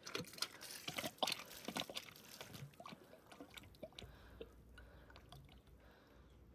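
Kitchen faucet spitting and dripping as air and a little water come through the freshly pressurised line: a quick, irregular run of small splutters and ticks that thins out after the first couple of seconds.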